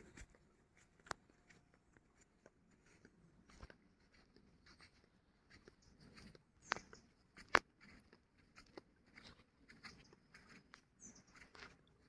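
Faint scattered clicks, ticks and rustles, with two louder sharp clicks a little past the middle.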